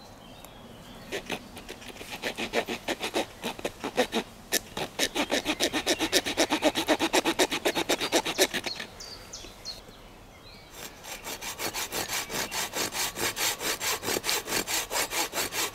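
Small hand saw cutting slots into the edge of a thin wooden board, in quick back-and-forth strokes of about four a second. The sawing stops for about two seconds near the middle, then starts again.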